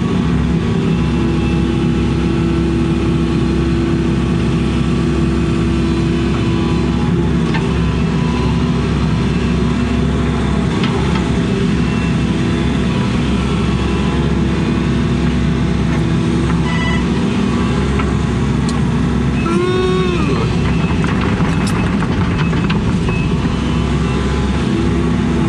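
Excavator diesel engine running steadily under load, with hydraulic whine, heard from inside the cab while digging. About three-quarters through, a brief whine rises and falls.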